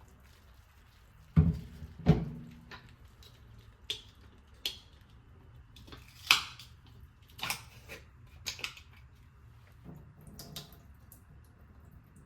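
Kitchen food-preparation sounds: two heavy thuds about a second and a half in, followed by a scattered series of lighter knocks and clinks of utensils and dishes being handled.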